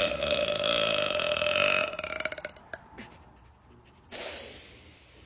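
A long human burp, about two and a half seconds at a steady pitch, breaking into a rattle as it ends. About four seconds in comes a softer hissing sound that fades away.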